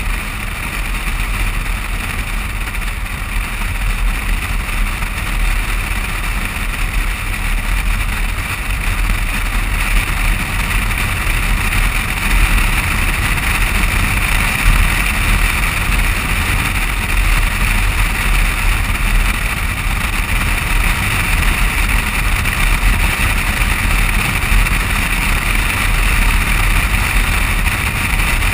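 Steady wind rush and tyre-on-asphalt road noise with a low rumble, picked up by a camera mounted on the outside of a moving vehicle's door. The noise grows a little louder about ten seconds in.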